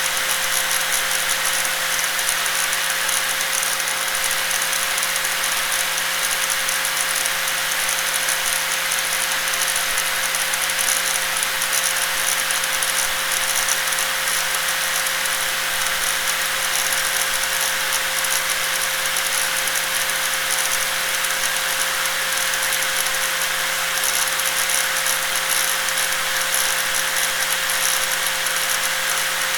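Electric angle grinder running continuously at a steady speed: a constant high whine over a dense hiss, unchanging throughout.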